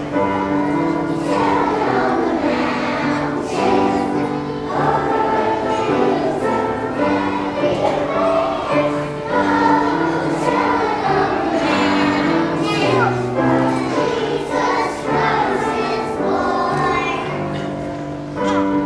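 A choir of young children singing a song together.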